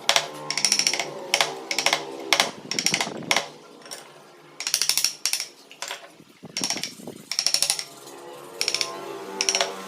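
Hand chisel cutting into wood in short repeated strokes, each stroke a quick crackling chatter of tiny clicks as the blade shears the fibres. The strokes come about two a second, with a brief pause near the middle.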